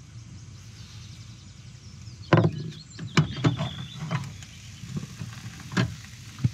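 Metal knocks and clanks as a hinged double-sided grill pan (Ridgemonkey type) on a portable gas stove is unclipped and swung open on frying bacon and egg. One loud knock comes a couple of seconds in, then a quick run of clicks and knocks, and two more near the end, over a low steady hum.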